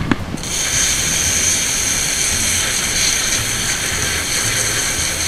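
Handheld toilet bidet sprayer jetting water onto a small sardine (tamban): a steady hiss that starts about half a second in, as the jet strips the scales off the fish.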